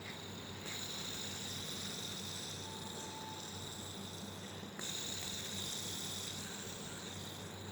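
Fidget spinner's ball bearing whirring with a steady high whirr, flicked to full speed about a second in and again near the middle, slowly dying away after each flick.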